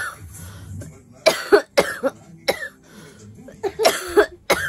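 A woman coughing in two bouts: three or four harsh coughs a little over a second in, then about three more near the end. It is the persistent cough she keeps having.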